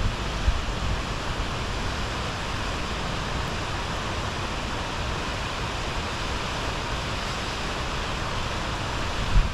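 Heavy rain falling steadily, a dense even hiss, with a short low buffet of wind on the microphone near the end.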